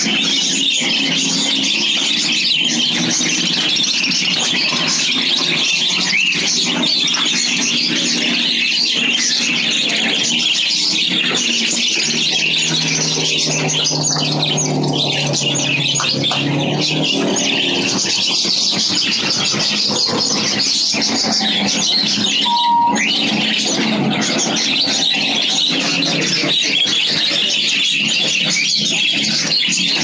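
Dense, steady chatter of many caged birds chirping at once, with a short clear whistled note about three-quarters of the way through.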